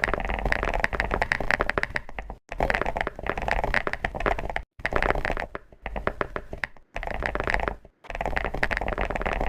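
Dense crackling and crunching of chocolate, made of many fine clicks, in several short segments cut together with brief silent gaps between them.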